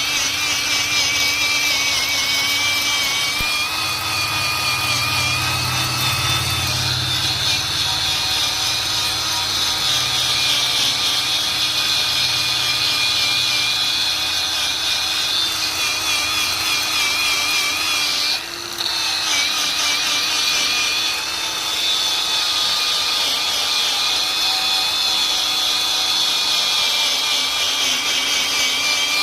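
Handheld electric power tool running continuously against metal, a high whine that wavers in pitch as the load changes while the surface is cleaned for welding. It cuts out very briefly about two-thirds of the way through.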